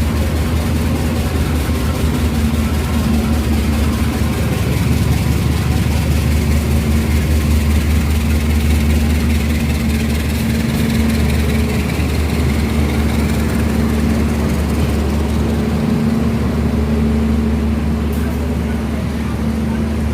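Diesel locomotive engine idling with a steady deep drone.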